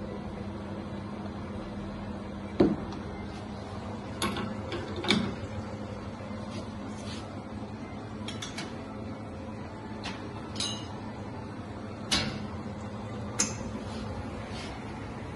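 Espresso-making clatter: a handful of sharp metal clicks and knocks from the coffee distributor, tamper and portafilter being handled and locked into the espresso machine's group head, the loudest about two and a half seconds in, over a steady low hum.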